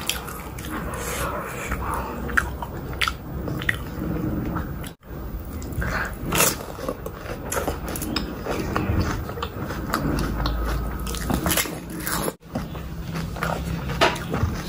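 Close-miked eating: crisp panipuri (golgappa) shells filled with spicy water bitten whole, crunching and chewed wetly, with irregular crackling bites and mouth noises. The sound drops out abruptly for an instant twice, at edit cuts.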